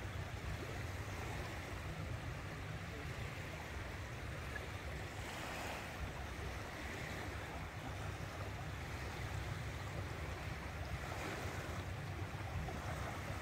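Water rushing and washing past a boat's hull in a strong tidal current, swelling now and then, over a steady low rumble.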